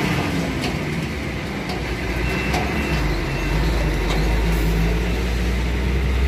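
Heavy diesel truck towing a drawbar trailer, passing slowly close by with its engine running in a steady low drone.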